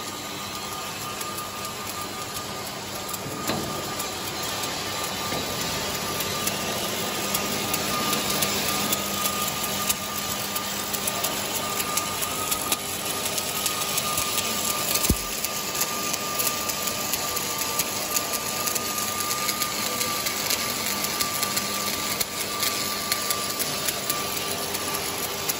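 Stick (shielded metal arc) welding: the electrode arc crackles and sizzles steadily as a bead is run along an inside seam of a sheet-metal box, with a faint steady high tone underneath.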